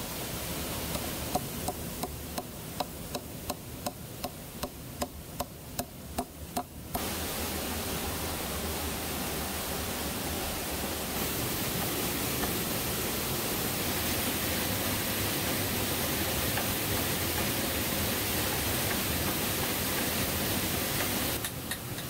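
A run of sharp knocks, about two a second, from a tool striking bamboo or wood, growing louder over the first seven seconds and then cut off suddenly. A steady rushing noise follows.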